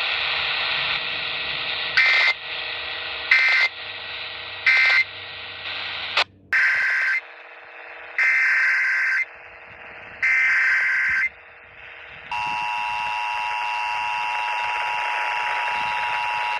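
Emergency Alert System tones received by radio over a steady hiss: three short digital data bursts (the end-of-message code), then three longer warbling SAME header bursts, and from about twelve seconds in the steady two-tone EAS attention signal (853 and 960 Hz).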